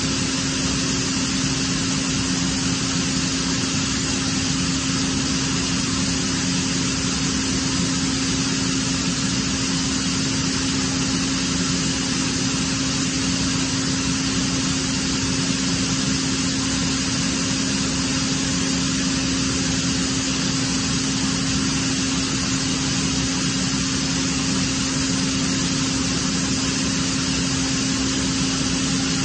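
Atlas Copco ZA 6 oil-free air compressor running steadily under load: a constant hum with one strong steady tone over an even hiss.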